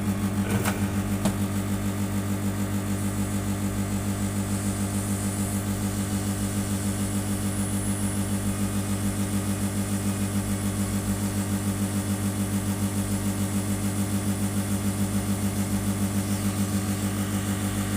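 Hot air rework gun running, a loud steady hum with a fast even flutter, as it heats the solder to seat a new charging socket on a phone's circuit board.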